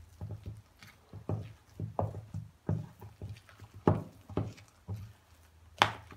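Wooden spoon stirring a thick cream cheese mixture in a stainless steel bowl: irregular knocks and scrapes against the metal, about two a second, with one sharp knock near the end the loudest.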